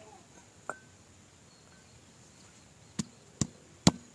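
Stone pestle pounding peeled beetroot pieces in a granite mortar: three sharp strikes starting about three seconds in, roughly two a second, after a single light tap near the start.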